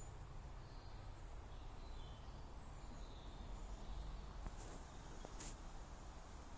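Quiet outdoor woodland ambience: a low steady rumble and hiss with a few faint, short bird chirps in the first half, and a couple of soft clicks past the middle.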